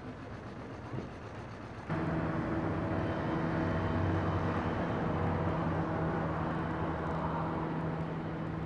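Quiet outdoor background, then about two seconds in an engine hum cuts in suddenly. It holds a steady pitch, grows a little louder and then eases off slightly.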